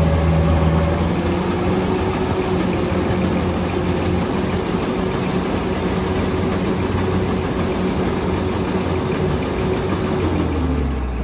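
Kubota combine harvester's diesel engine running hard at steady high revs while bogged in mud; the engine note climbs a little after about a second and drops back near the end.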